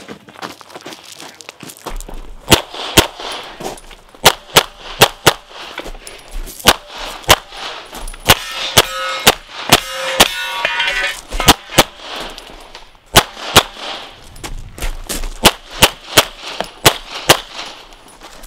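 CZ Shadow 2 pistol fired rapidly, mostly in quick pairs, with a short pause about twelve seconds in. Between about eight and eleven seconds the shots are mixed with the ringing clangs of steel targets being hit.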